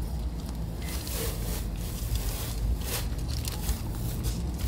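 Masking tape being peeled off the freshly painted hull along the waterline: irregular ripping and crackling of tape and masking paper coming away, over a low steady rumble.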